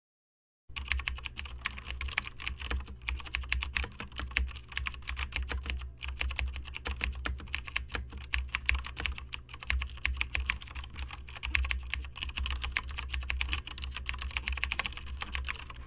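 Rapid, continuous typing on a computer keyboard, a dense stream of keystroke clicks that starts just under a second in.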